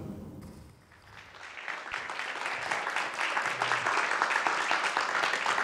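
An audience applauding, building up about a second and a half in and continuing as a dense, even clatter of clapping. At the very start, the last notes of an intro tune die away.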